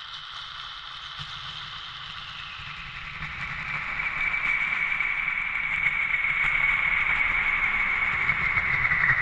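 Eurorack modular synthesizer noise patch: a Mutable Instruments/Music Thing Ears contact-mic module, brushed with a toothbrush, gates a Noise/Sample & Hold module, heard through a Boss RE-20 Space Echo and a TC Electronic Hall of Fame reverb. A hissing, crackling noise texture with a whistling band in it swells louder from about three seconds in, over a low rumble.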